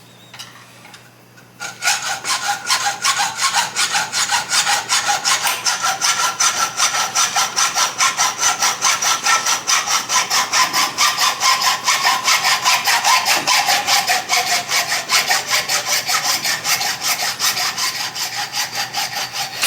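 A turkey wing bone being sawn through, with quick, even back-and-forth strokes, about four a second, starting about two seconds in.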